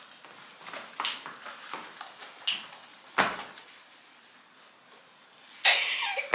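Scattered footsteps and knocks on a hardwood floor, one heavier thump about three seconds in, then a loud rustle of clothing being pulled and handled near the end.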